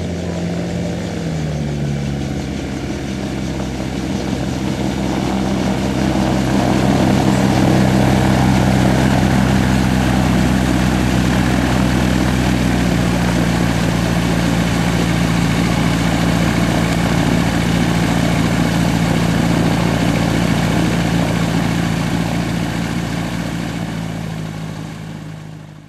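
Gyroplane's turbocharged Rotax 914 flat-four engine and propeller running steadily on the ground. The engine note drops about a second or two in, the sound grows louder, then fades out near the end.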